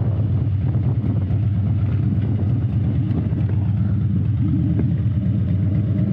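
Harley-Davidson V-twin motorcycle engine running steadily while the bike is ridden.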